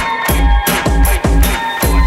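Electronic dance remix music with a heavy kick drum about twice a second, hi-hats and sustained synth tones.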